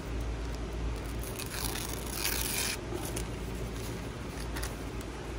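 Thin paper rustling and rasping as it is torn by hand, loudest from about a second and a half to nearly three seconds in.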